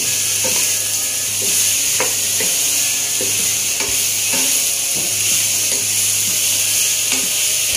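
Sliced bitter gourd and pork sizzling in a wok while a wooden spatula stirs and scrapes them, a steady frying hiss with a spatula stroke about every half second to a second.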